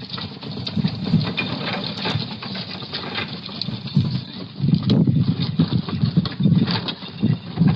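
Irregular bumps, knocks and scuffing through a doorbell camera's thin-sounding microphone, from a fridge being hauled up to a front door.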